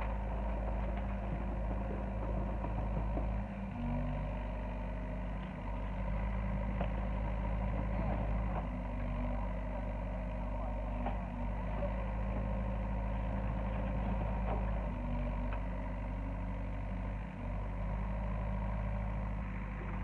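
Hyundai 60 excavator's diesel engine running steadily, its pitch stepping up and down now and then as the hydraulics take load, with a few faint knocks from the debris being worked.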